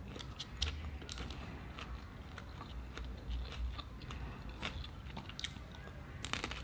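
Close-miked eating: a person biting and chewing food, with irregular wet clicks and smacks throughout and a few sharper ones near the end.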